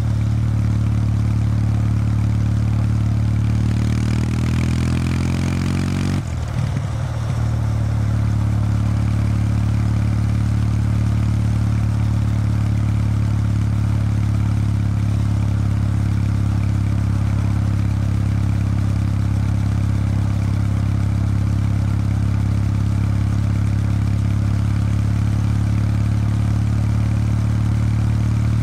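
Kawasaki W800 Street's air-cooled parallel-twin engine running through its stock exhaust while the bike rides along. About four to six seconds in, a falling-pitch tone and a rush of hiss pass over it, and the note briefly dips and breaks. After that it runs steady and even.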